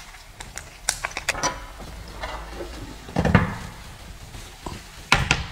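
Handling noise from assembling a 3D printer's metal frame: scattered light clicks and knocks, with a louder thump a little past three seconds in and another near the end.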